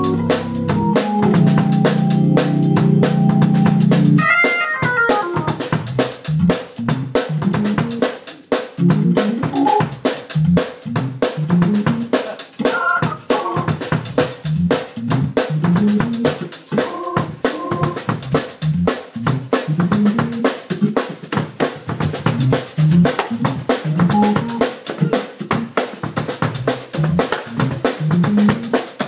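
Drawbar organ jamming over a drum kit groove. The organ holds a low chord for about four seconds and then drops in a quick falling run. It goes on with short riffing phrases over steady snare and bass drum.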